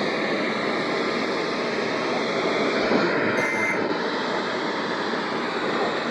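Steady hiss of radio static from a weak broadcast signal, with a brief faint high tone about three and a half seconds in.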